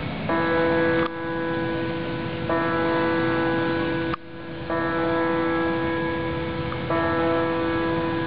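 Church bells of the main church ringing the ten o'clock hour, a new note sounding about every two seconds and ringing on.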